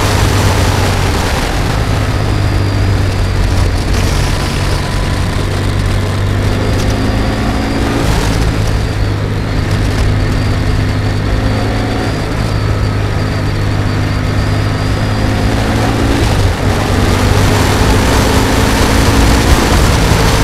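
Kawasaki W650's air-cooled parallel-twin engine running steadily under way, with wind rushing over the bike-mounted camera's microphone. The engine note changes briefly about eight seconds in and again near the end.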